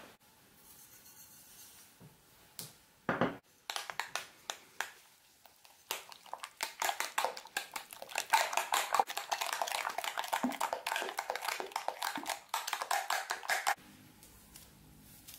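A metal utensil beating egg into a sour cream mixture in a ceramic bowl: fast, even clicking and scraping against the bowl that starts about six seconds in and stops shortly before the end. A single knock comes about three seconds in.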